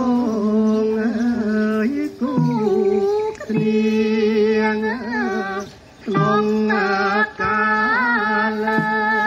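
Background music: a single voice singing a slow melody in long held notes, with short breaks between phrases.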